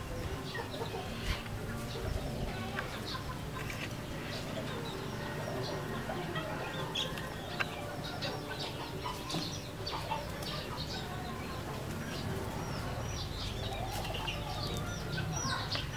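Red junglefowl clucking softly while they forage, amid many short, high bird chirps throughout.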